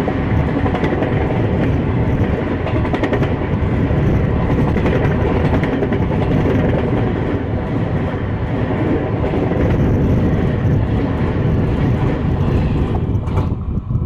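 Duronto Express passenger coaches passing at speed close by: a loud, steady rush and rumble of wheels on rail with quick clacks over the rail joints, falling away near the end as the last coach goes by.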